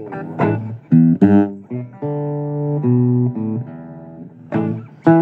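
Guitar playing a blues instrumental passage: plucked single notes and chords, with a few notes held for about a second and a half around the middle, and quicker chords near the end.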